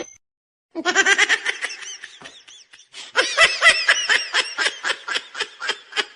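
High-pitched laughter, a rapid run of short bursts about four or five a second, starting about a second in, breaking off briefly, then going on again.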